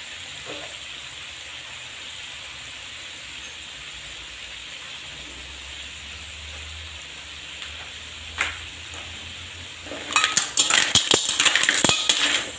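Clams in their shells frying with a low, steady sizzle in a wok. About ten seconds in, a metal spatula starts stirring them, shells clattering and scraping against the pan.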